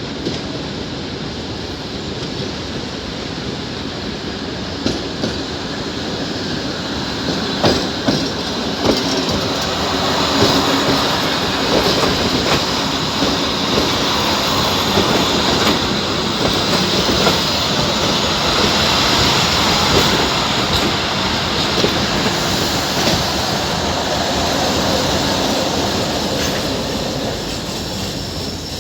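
Abu Qir line passenger train running on the rails: wheels clacking over rail joints and a high-pitched squeal. It grows louder about a third of the way in, holds steady, and eases near the end.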